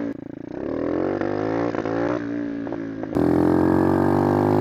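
Dirt bike engine under way, its pitch climbing as it pulls, easing off about two seconds in and climbing again; just after three seconds the sound jumps louder and the engine runs steady.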